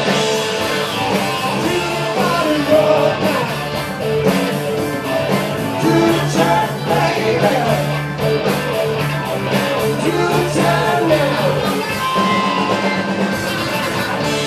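A rock band playing live: electric guitar and bass over a driving drum kit with frequent cymbal hits, loud and continuous.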